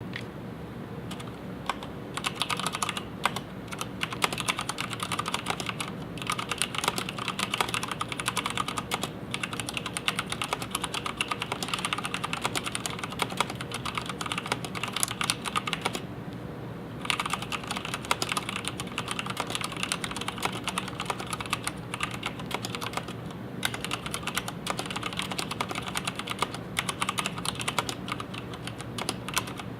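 Continuous fast typing on an mStone Groove87-FR4 tenkeyless mechanical keyboard with red linear switches, a dense patter of keystrokes. The typing stops for about a second midway.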